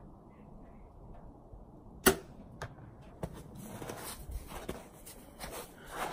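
Compound bow shot: one sharp crack about two seconds in as the string is released from full draw. Lighter clicks and rustling follow as the bow is handled.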